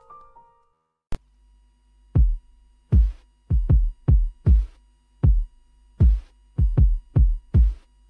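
Background electronic music: a piano phrase dies away, then after a short gap a drum-machine beat of deep, falling kick drums over a low steady bass drone.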